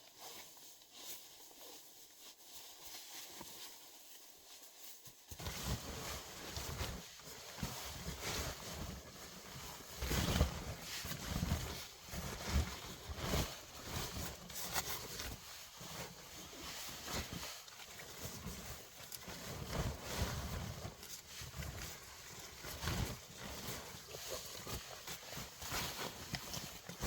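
Irregular crunching, rustling and knocking, starting abruptly about five seconds in after a quieter stretch.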